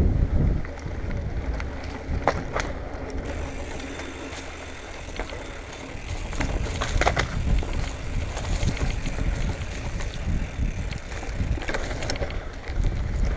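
Marin Bobcat Trail 5 hardtail mountain bike riding a dirt singletrack: tyres rolling over dirt under a steady low rumble, with scattered clicks and rattles from the bike over rough ground. The rattling is busiest about seven seconds in, after a quieter spell.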